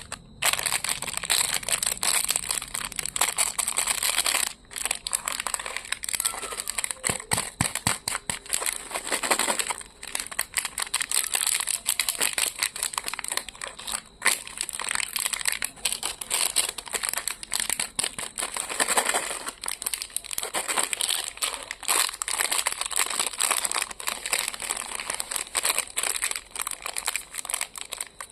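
Plastic candy wrappers crinkling continuously as packets of lollipops and sweets are handled and opened, with a few brief pauses.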